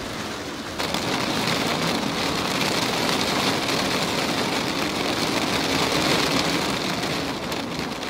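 Steady heavy rain falling on the boat, growing louder about a second in.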